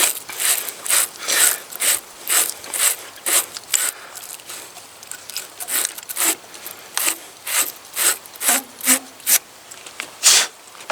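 Battery terminal cleaner brush scraping inside a new battery terminal, scouring it out so it will fit the post. Repeated short scraping strokes, about two a second for the first few seconds, then more spaced out.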